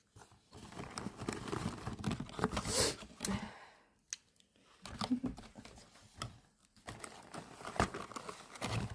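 Packaging crinkling and rustling as it is handled and opened, with scattered small clicks and taps. There is a louder burst about three seconds in and a short lull about a second later.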